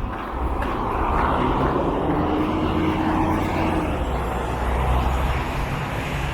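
Loud engine rumble over city traffic, swelling about half a second in and staying up, with a steady hum partway through.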